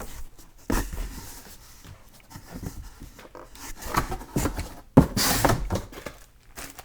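Handling and opening a cardboard box and its packing: irregular rustling, scraping and light knocks. A sharp knock about five seconds in is followed by a brief rasping scrape.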